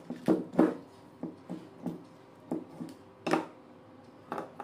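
Irregular clicks and knocks of small pump parts being handled and set down on a wooden desk during disassembly, about nine in all, the loudest about half a second in and about three seconds in.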